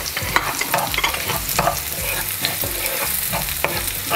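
Whole and chopped garlic sizzling in hot oil in a pan, stirred with a wooden spatula. The spatula scrapes the pan in repeated, irregular strokes over a steady sizzle.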